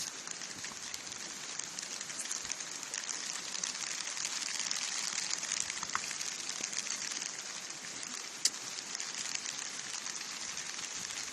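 River water flowing, a steady rushing splash with fine crackle. A single sharp click about eight and a half seconds in.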